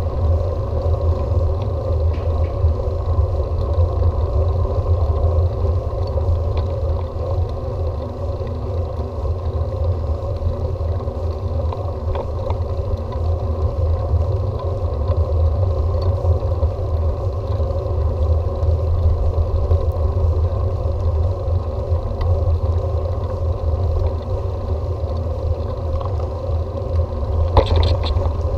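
Steady low rumble of riding a bicycle: wind and road noise on the microphone. A brief, sharper sound stands out near the end.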